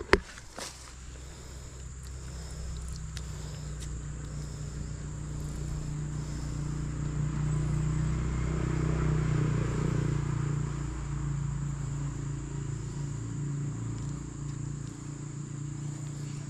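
A motor engine hums steadily, growing louder to a peak about halfway through and then slowly fading. A sharp knock sounds at the very start.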